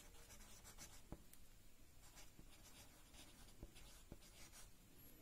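Faint scratching of a pen writing on paper, with a few light ticks of the tip.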